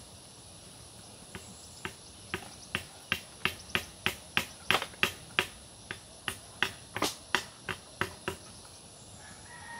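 Rapid sharp knocks of a tool striking coconuts, about three a second for several seconds, starting about a second in and stopping near the end. Under them runs a steady high insect drone.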